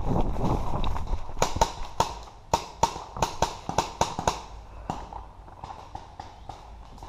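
Rustle and rumble of moving through brush, then a rapid string of about a dozen sharp paintball marker shots, about four to five a second, followed by fainter, more distant shots.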